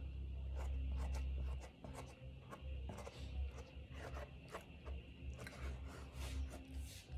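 A metal spoon scraping and tapping in a styrofoam takeaway box while cake is scooped out: a string of short scrapes and clicks. A low rumble is loudest in the first second and a half.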